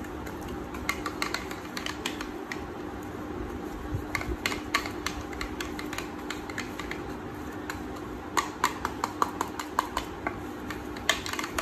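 Tint brush clicking and scraping against the sides of a plastic tint bowl as hair colour cream and violet pigment are stirred together. The quick ticks come in irregular clusters, busiest about four seconds in and again from about eight and a half seconds on, over a steady low hum.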